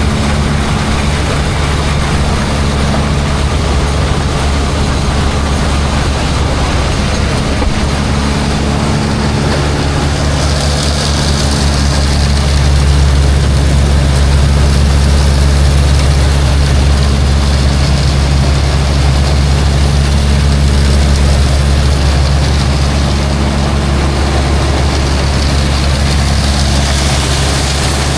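Tractor's diesel engine running steadily under load while hauling a silage wagon, getting louder about twelve seconds in and easing back near the end.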